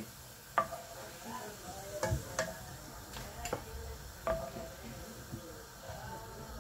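Hot oil sizzling faintly in a non-stick pan with a few whole spices and onion scraps left in it, while a wooden spoon knocks and scrapes against the pan several times.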